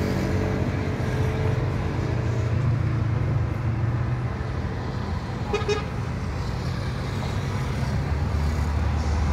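Road traffic with a steady low hum, and a car horn tooting once, briefly, about five and a half seconds in.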